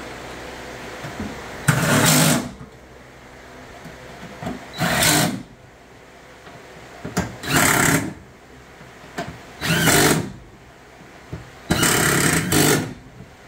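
Cordless drill running in five short bursts, turning bolts into the side wall of a pickup's bed.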